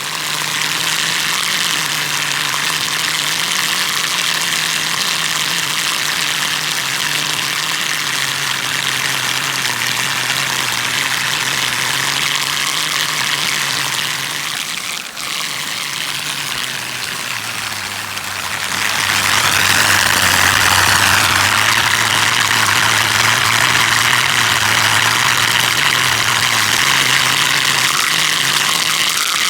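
Whirlpool at a dam drawing water and air down its funnel: a steady low whistling hum over loud rushing water. The hum's pitch sinks slowly, and about two-thirds of the way in the rush of water grows louder.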